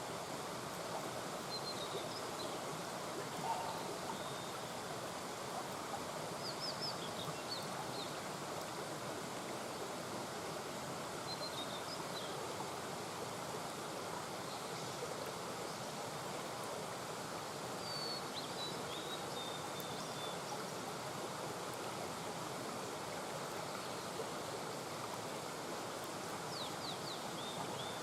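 Small mountain brook flowing steadily over rocks, a constant babbling rush. Short high bird chirps come through now and then, a few times in all.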